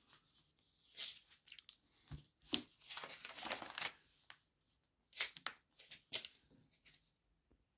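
Glossy magazine pages rustling as they are turned and smoothed flat by hand, in several short rustles, with a longer one in the middle.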